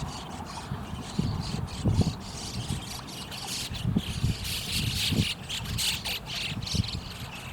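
Outdoor ambience: wind buffeting the camera's microphone in irregular low gusts over a steady high hiss.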